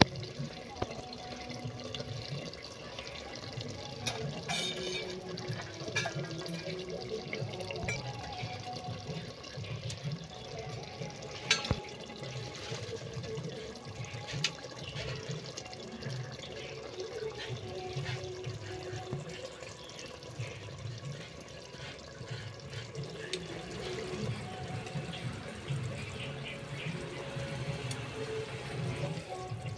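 Chicken curry bubbling and simmering in a handi pot on low heat, with a continuous watery burble, and a single sharp click about twelve seconds in.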